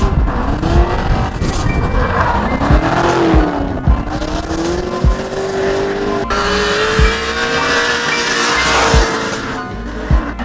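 Drift car engine revving, its pitch rising and falling and then climbing steadily, while the tyres screech as the car slides through the corner. The tyre noise is loudest from about six to nine and a half seconds in, as the car comes close.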